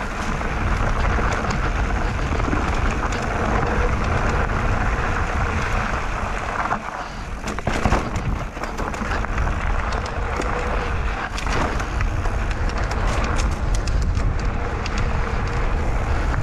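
Mountain bike descending a dirt singletrack: wind rushing over the ride-mounted microphone, tyres rolling over the ground and the bike rattling over bumps, with a few sharp knocks about seven to eight seconds in.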